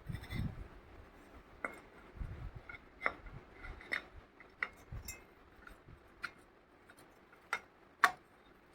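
Scattered small metallic clicks, taps and clinks of parts and hand tools being handled while a manual push grass cutter is repaired, irregular, with the sharpest click near the end.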